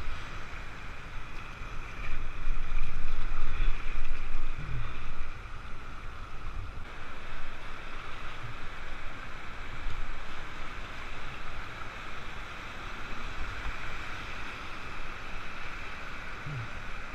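Whitewater rapids rushing and splashing around an inflatable raft, with a louder stretch about two to five seconds in.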